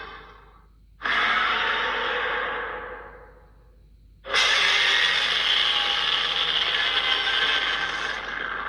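D-Rex (Distortus rex) creature sound effect: two loud, breath-like hissing exhalations. The first starts suddenly about a second in and fades away over about two seconds; the second starts suddenly near the middle and holds for about four seconds.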